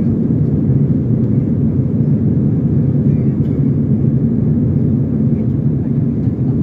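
Steady low roar of jet engines and rushing air heard inside the cabin of an Airbus A320-family airliner climbing out after takeoff.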